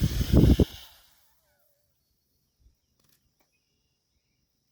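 About a second of rumbling noise on the phone's microphone that cuts off. After it, only a faint, steady, high-pitched whine remains.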